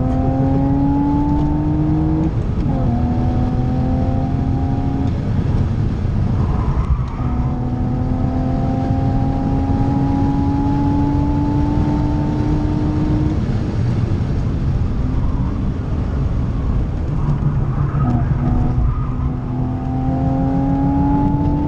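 BMW Z4 3.0i's M54 straight-six engine at full throttle, heard from inside the cabin. Its pitch climbs in long pulls through the gears: it drops at an upshift about two seconds in, and the longest pull runs through the middle. It eases off the throttle briefly past the middle, then pulls again with another shift near the end.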